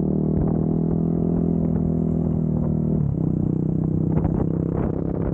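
Yamaha WR250R supermoto's 250 cc single-cylinder engine running through a Barrett exhaust while riding at a steady pace. Its pitch drops about three seconds in, then holds again.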